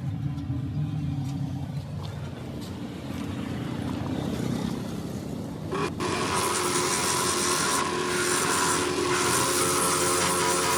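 A low motor hum, then about six seconds in a power grinder starts on the tire rubber, a loud rasping run with a steady whine.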